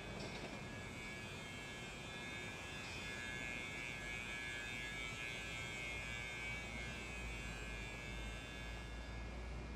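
Steady electrical hum with a thin high-pitched whine, strongest through the middle, over a faint background of city traffic.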